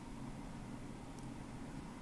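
Quiet room tone with a steady low hum and one faint, tiny click a little after a second in.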